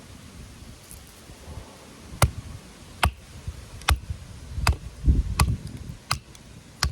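Batoning firewood: a baton striking the spine of a thin Seedy Knives Skinny Dude knife, driving the blade down through a piece of wood. About seven sharp blows, roughly one a second, beginning about two seconds in.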